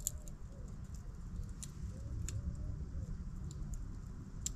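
Small campfire crackling, with a handful of sharp pops over a steady low rumble. A pigeon coos faintly several times.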